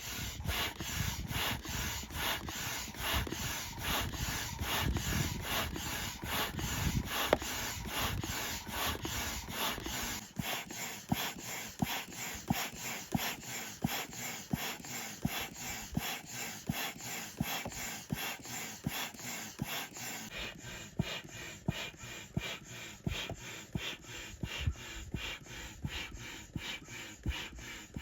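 Hand pump inflating an inflatable stand-up paddleboard, its strokes making a steady rasping rhythm at about two a second.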